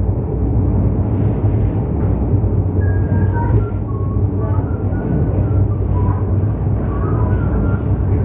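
Zugerbergbahn funicular car running uphill: a steady rumble of its wheels on the rails, with a low hum. A scatter of short, high chirps comes about three to seven seconds in.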